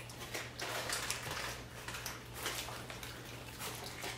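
Soft, irregular rustling and crinkling of paper and plastic fast-food packaging as fries are picked out and handled, over a low steady hum.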